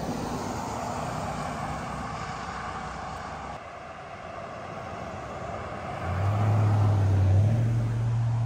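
Road traffic passing close by: a steady rush of tyre noise, then a low engine drone that grows louder about six seconds in and steps up slightly in pitch.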